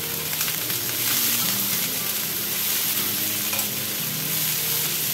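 Sliced onions sizzling in hot oil in an aluminium kadhai, stirred with a perforated metal spoon that scrapes and clinks against the pan. The onions are being fried until light brown.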